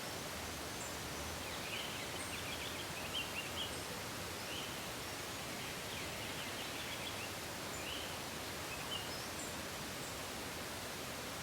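Quiet outdoor woodland ambience: a steady background hiss with faint, scattered chirps of small birds.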